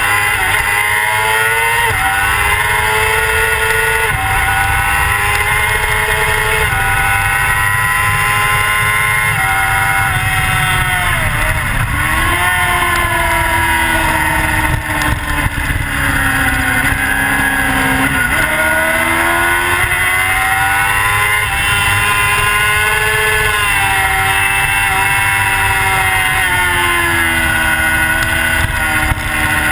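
Racing motorcycle engine heard from onboard, accelerating through the gears: its pitch climbs and then drops sharply with each upshift, every two seconds or so at first. About midway it falls away and climbs again as the bike slows for a corner and picks up speed, with heavy wind noise on the microphone underneath.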